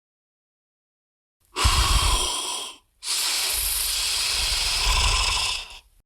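Designed monster creature sound effect: two breathy hisses, a short one starting about a second and a half in, then after a brief gap a longer, steady one of nearly three seconds.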